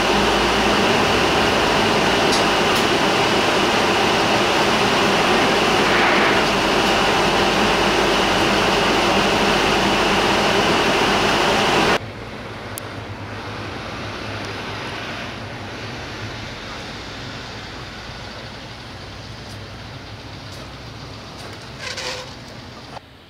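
Loud, steady cabin noise inside a Yamako Bus route bus: engine and body noise filling the cabin. About halfway through it cuts to a much quieter steady bus engine and road noise outdoors, which slowly fades, with a short louder sound near the end.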